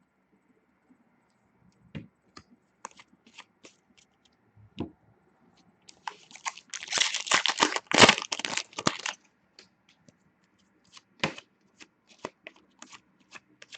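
A foil trading-card pack being torn open, its wrapper crinkling densely for a few seconds near the middle, with scattered clicks and snaps of card handling before and after.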